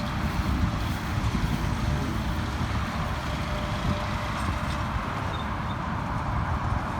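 Tractor engine running steadily while pulling a round baler through the hay.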